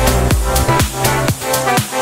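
Electronic dance music with a steady thumping beat and sustained synth chords; the bass drops out briefly near the end.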